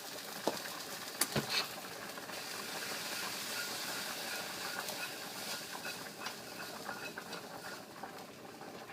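Steady hiss of food sizzling and bubbling in a pot on the stove, with a few light clicks of a utensil against the pot in the first two seconds.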